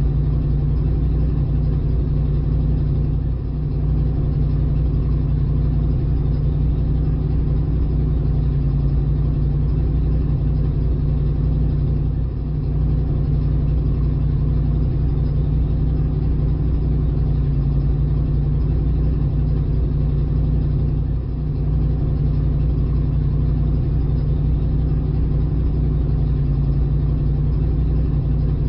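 Ford Mustang's 302 V8 engine idling steadily.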